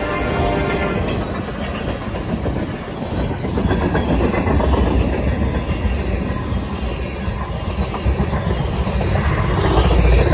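Freight train of tank cars passing close at speed: a steady rumble with wheels clicking over the rail joints. The last of a locomotive horn note dies away about a second in, and the rumble grows louder near the end.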